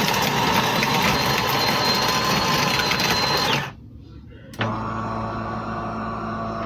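De'Longhi Rivelia's built-in grinder grinding whole coffee beans: a loud, steady whirr with a high whine, stopping about three and a half seconds in. After a short lull and a click, a lower steady machine hum starts.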